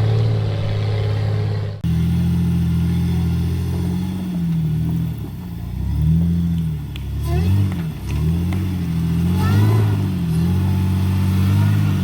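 Jeep engine running steadily, then after a sudden break about two seconds in, revving up and down over and over as it works under varying throttle.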